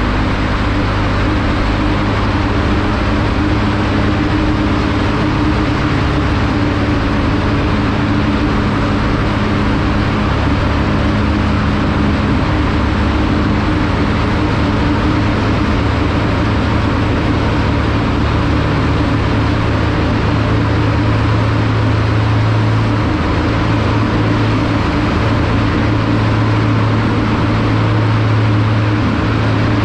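TVS Apache 200's single-cylinder engine running at a steady cruise, with an even rush of wind and road noise inside a road tunnel.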